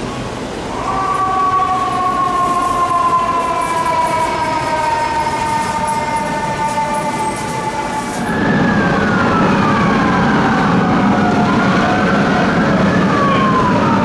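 Fire truck's mechanical Q siren winding down, one slowly falling tone held for about seven seconds. About eight seconds in it gives way to several sirens sweeping down and up over one another above a low engine rumble.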